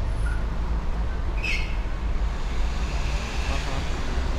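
Steady low rumble of street traffic, with a short high squeak about a second and a half in.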